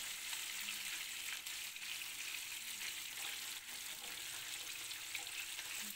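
Fish pieces shallow-frying in oil in a non-stick pan: a low, steady sizzle with a few faint pops. Both sides are already fried, and the pieces are being kept on the heat to drive out their remaining water.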